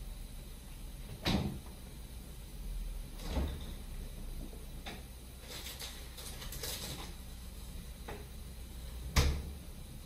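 Refrigerator freezer door being handled: a few sharp thumps and clicks, with a clatter of things being moved about inside in the middle. The loudest thump, near the end, is the door shutting.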